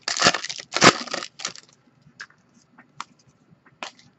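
Foil wrapper of a trading card pack torn open, crinkling loudly in two bursts over about a second and a half, then a few light clicks as the cards are handled.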